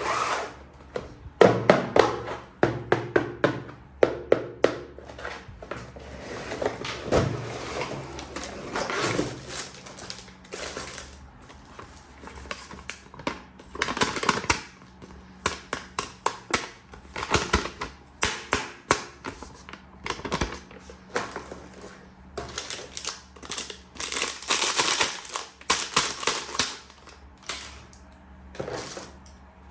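Plastic toy parts and their packaging being handled: a dense, irregular run of small clicks, taps and knocks, with stretches of rustling in between.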